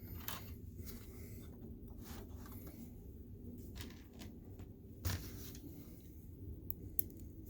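Light clicks and scraping of a DLP projector's colour wheel assembly being handled and fitted back into the projector chassis, with a sharper click about five seconds in.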